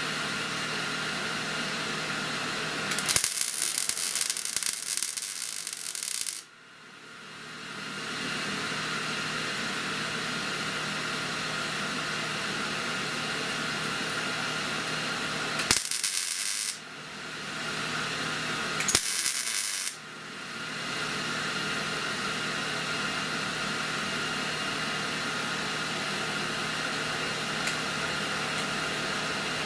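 Three short bursts of electric welding arc crackle as tack welds fill small holes in a car's windshield frame: one of about three seconds, then two of about a second each later on. A steady hiss and hum of shop equipment runs underneath.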